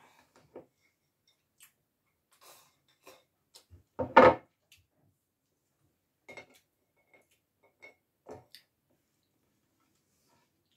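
Chopsticks and a spoon clinking against a plate and rice bowl while eating: scattered light clicks, with one louder clatter about four seconds in.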